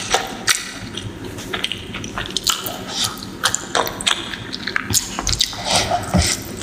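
Close-miked eating sounds of fish curry and rice: wet chewing with many sharp smacking clicks, several a second.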